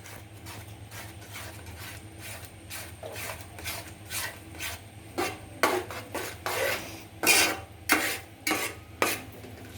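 A spoon stirring thick jackfruit and jaggery in a cooking pan, scraping against the pan, soft at first and then in distinct strokes about twice a second from about halfway through.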